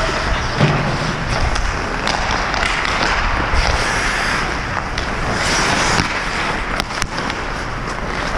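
Ice hockey skates scraping and carving on the rink ice, with wind noise on the helmet camera's microphone as the player skates. A few sharp clacks of sticks and puck, two close together near the middle.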